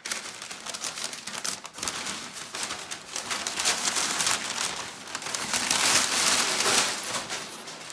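Packing paper crinkling and rustling as it is pushed aside and pulled out of a box by hand, getting louder about halfway through.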